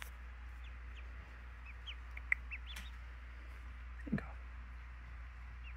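Newly hatched ducklings peeping: scattered short, high, rising peeps, over a low steady hum. A sharp click a little past two seconds in and a brief low sound about four seconds in.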